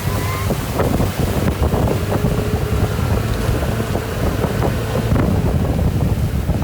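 Motorboat engine running at speed under heavy wind buffeting on the microphone, with irregular slaps and splashes of water.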